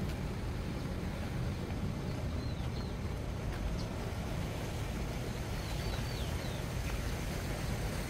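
Steady low outdoor rumble, mostly wind on the microphone, with two faint high bird chirps, about two and a half and six seconds in.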